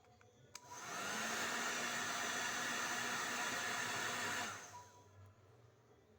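Hot-air dryer brush switched on with a click, its motor spinning up with a rising whine and blowing steadily for about three and a half seconds, then switched off and winding down.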